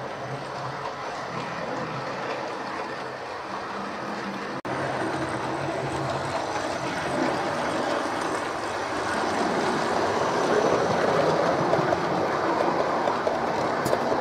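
Bachmann OO-gauge model train, a GWR City class locomotive hauling WW1 ambulance train coaches, running on the track: a steady whir and rattle of motor and wheels on rail that grows louder as the train passes close, about nine to thirteen seconds in.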